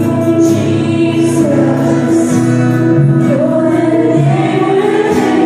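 Praise and worship music: voices singing over long held instrumental chords.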